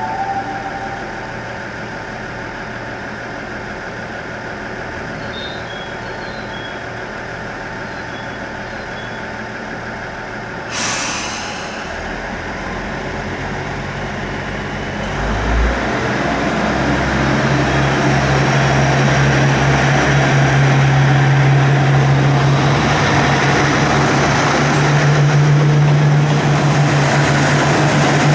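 A train near the level crossing: a short hiss of air about eleven seconds in, then its engine running steadily and growing louder from about halfway, rising slightly in pitch near the end.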